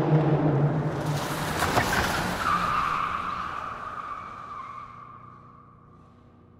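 A car engine and a burst of tyre screech, then a high whine that falls slowly in pitch and fades away.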